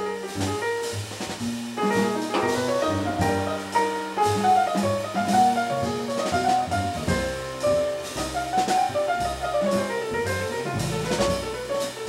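Jazz piano trio playing: grand piano running melodic lines of quick notes over upright double bass and a Gretsch drum kit with cymbals.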